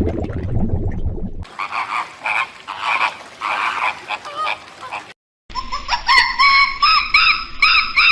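Frogs croaking in a series of short repeated calls, then, after an abrupt cut, a chicken calling with loud repeated rising calls.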